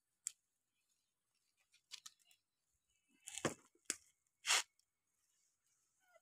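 Freshly wilted banana leaf rustling as it is handled, laid out and smoothed flat by hand, in a few separate short rustles, the loudest about three and a half and four and a half seconds in.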